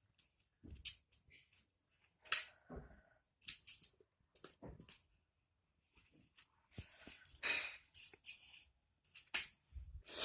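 Magnetic building blocks clicking and clacking as they snap together and are handled, in a dozen or so irregular short knocks.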